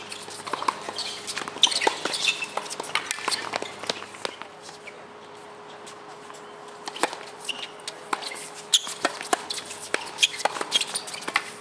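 Tennis ball struck by rackets and bouncing on a hard court during a doubles point: a string of sharp pops, with a quieter gap of about two seconds before the serve, then a quick run of hits from about seven seconds in.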